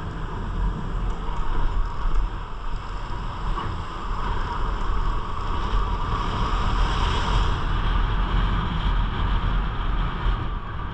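Wind rushing over the camera microphone on a moving motorcycle, with the Honda CG 160 Titan's single-cylinder engine running underneath; the rush swells for a couple of seconds past the middle.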